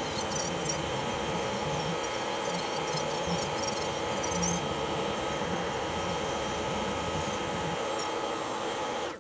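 Electric nail drill running with a steady whine, its bit grinding down an old nail enhancement, with a fine scratchy crackle of contact through the first half. The sound drops away suddenly near the end.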